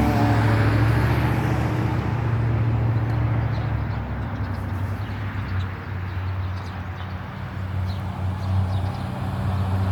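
Crunching footsteps, a few faint crisp steps, over a steady low rumble of passing road traffic, which is the loudest sound.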